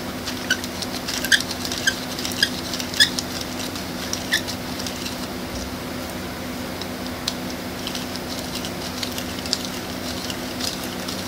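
3D-printed plastic pulleys turning by hand on ABS filament axles, giving short plastic squeaks about twice a second for the first few seconds, then lighter scattered clicks.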